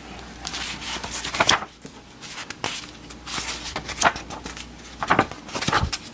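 Books being handled: repeated rubbing and rustling of covers and pages, with a few light knocks.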